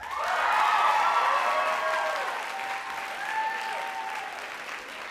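Audience applauding at the end of a performance, with a few whoops and shouts rising and falling over the clapping. The applause starts suddenly, is loudest at first, and slowly fades.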